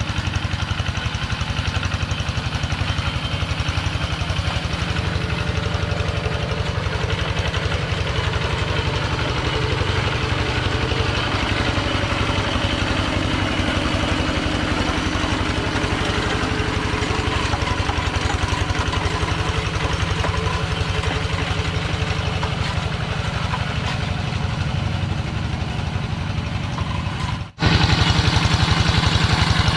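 Single-cylinder diesel engine of a two-wheel hand tractor running steadily with a fast chugging pulse while it plows a flooded rice paddy. Near the end the sound breaks off for an instant and comes back louder and closer.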